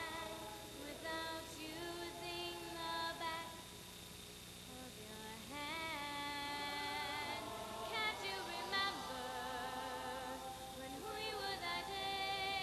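Show choir singing: a female soloist sings into a microphone over the choir's voices, holding notes with vibrato.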